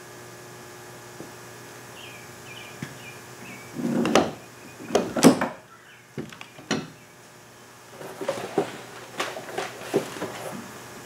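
Hands handling parts and tools at a workbench and in a pickup bed: a few loud clunks and rustles about four to five seconds in, two sharp clicks soon after, then a run of lighter knocks and rustles near the end.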